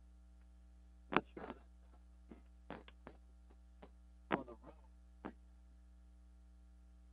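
Low, steady electrical mains hum on the broadcast line, with a few short faint sounds breaking in about a second in, around three seconds and after four seconds.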